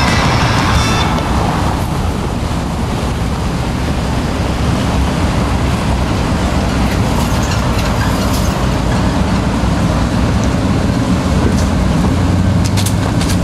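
Boss Hoss V8 motorcycles and trike rumbling along at a steady cruise in a group, a low engine drone. Background music fades out in the first second or so.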